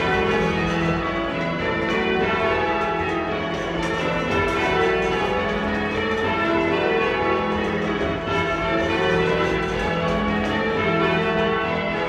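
Church bells rung in changes, full-circle change ringing from the tower, the bells striking one after another in a continuous, even rhythm with their tones ringing into each other.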